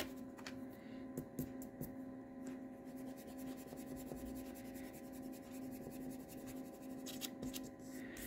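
Faint rubbing and light taps of a pencil eraser working over a small card-stock drawing, clearing away pencil lines, with a steady electrical hum underneath. The scratchy strokes come in a short cluster near the end.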